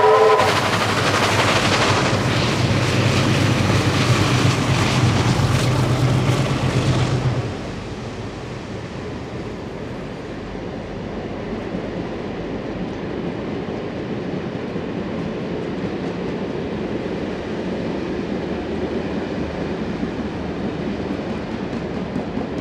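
NSWGR Beyer-Garratt 6029, an articulated steam locomotive, working hard up the grade with loud, rapid exhaust beats, after a brief whistle note at the very start. About seven seconds in, the exhaust drops away and the passenger carriages roll past with a steady, lower rumble.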